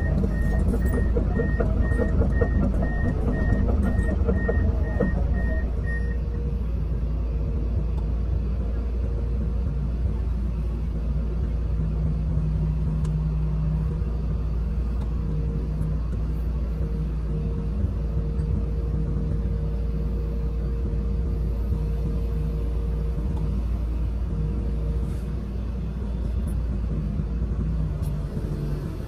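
Komatsu PC210 excavator's diesel engine and hydraulics running steadily, heard from inside the cab, with a steady hum over the low rumble. A beeping alarm sounds about twice a second and stops about six seconds in.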